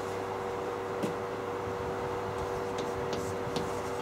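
Chalk tapping and scratching on a blackboard as numbers are written, with a few sharp ticks about a second in and near the end, over a steady room hum.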